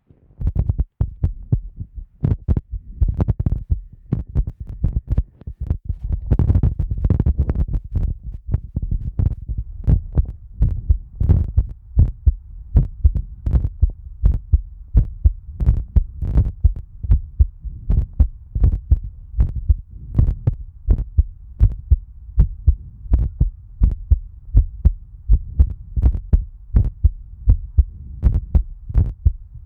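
A person's heartbeat recorded through a microphone on the chest: low thumps repeating steadily, a little over once a second.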